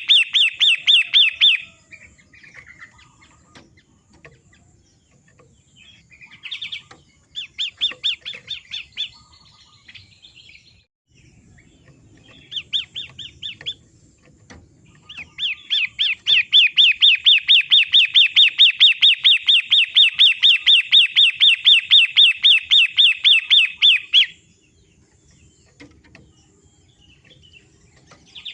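Long-tailed shrike (pentet) giving fast chattering trains of repeated chirps, about five a second, in several bouts; the longest lasts some eight seconds near the end.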